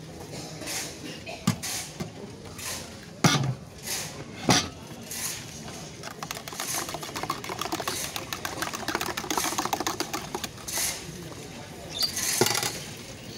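Wire whisk beating juice inside a stainless steel mug: a fast, rapid rattle of the wires against the mug, running for several seconds from about halfway through. Before it come a few sharp knocks of steel mugs and utensils as juice is poured from one mug to another.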